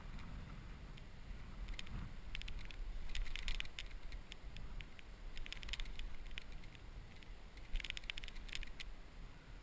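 Spinning reel clicking in several short rapid bursts while a hooked striped bass is played on a bent rod, over a low steady rumble.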